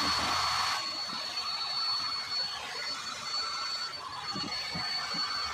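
Electric heat gun blowing hot air on a cricket bat's face to strip the old stickers: a steady high whine over a rushing airflow, with the rush easing after about a second.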